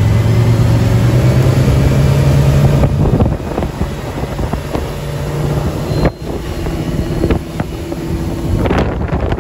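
Nautique inboard wake boat under way at speed: a steady engine drone with rushing water from the wake and wind buffeting the microphone. The engine is strongest for the first few seconds, after which wind and water noise dominate, with sudden changes about three and six seconds in.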